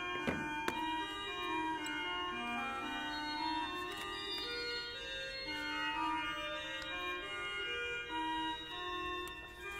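Organ music: several lines of held notes moving at a moderate pace. There are a couple of light knocks about half a second in.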